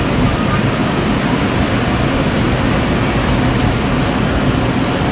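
Running noise inside a Concarril NS-88 rubber-tyred metro car under way: a loud, steady rumble of wheels and running gear with a faint low hum.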